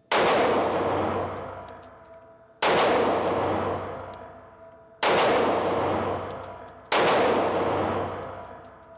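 Taurus G2c 9mm pistol fired four times, slowly and about two seconds apart. Each shot is followed by a long fading tail.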